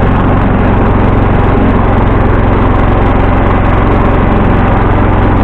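1974 John Deere 140 H3 garden tractor's single-cylinder engine running steadily, loud and close.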